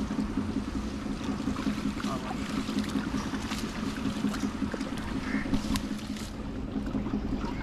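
A steady low motor-like hum, with light splashes and rustles of men wading in shallow muddy water and handling a fishing net.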